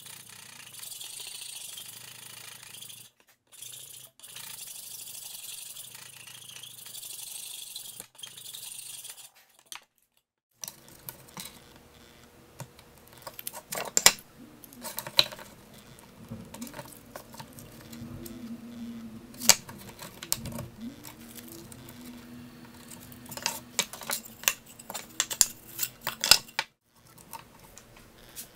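A hand file rasping across the edge of a thin wooden board clamped in a bench vise, with two short pauses. Then, after a cut to silence, scattered sharp clicks and knocks as a wooden panel is handled and marked on the workbench.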